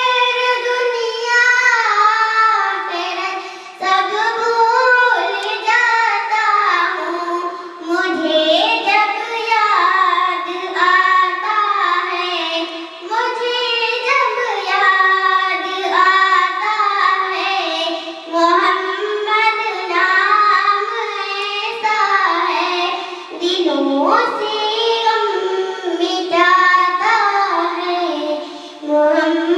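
A young girl singing solo into a handheld microphone, in melodic phrases broken by short pauses.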